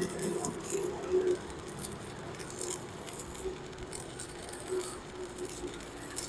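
Stick-welding arc crackling and sputtering as a 4 mm electrode burns at about 200 A from a Protech MK250 inverter welder, with a faint steady hum underneath.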